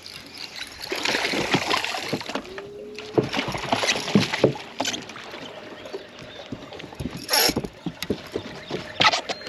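A hooked bass splashing at the side of the boat as it is lifted out, then a run of short knocks and thumps on the boat deck as the dog moves about.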